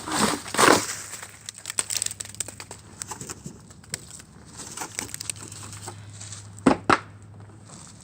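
Crinkling and crackling of a milk carton being handled to get the last frozen milk out, with many short clicks early on and two sharp knocks near the end.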